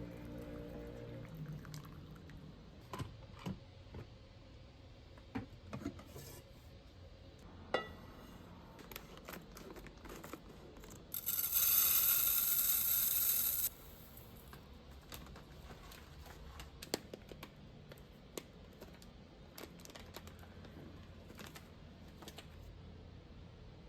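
Kitchen handling sounds while preparing food: scattered light clicks and knocks of utensils and containers, with a steady rushing hiss lasting about two and a half seconds near the middle.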